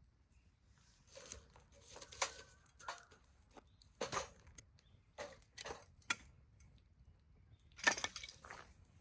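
Irregular clicks, clatters and short rustles of small objects being handled, starting about a second in, with louder knocks about four seconds in and again near the end.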